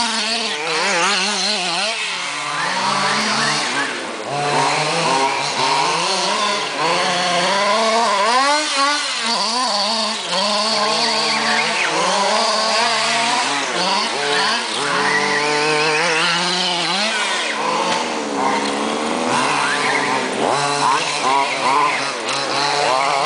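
Several radio-controlled off-road buggies' small nitro engines racing, revving up and down in quick, overlapping rises and falls as they run laps.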